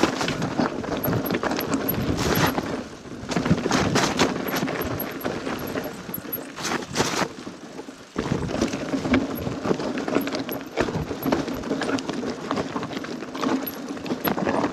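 Niner mountain bike on 29-inch wheels clattering and rattling down a rough, rocky technical trail: a dense, irregular run of knocks. There is a short lull about three seconds in and a brief drop about eight seconds in.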